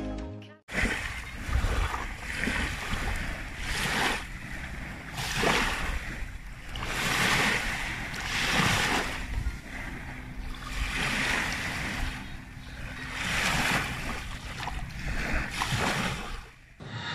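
Small sea waves breaking and washing up a sandy shore, the surge swelling and receding every second or two.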